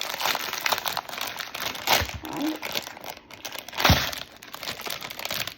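Plastic toy packaging crinkling as it is handled and pulled open, with two brief low knocks about two and four seconds in.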